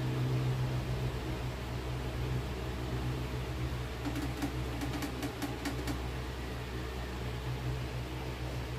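Electric fan running with a steady low hum and airy whir. A few faint light ticks come about four to six seconds in.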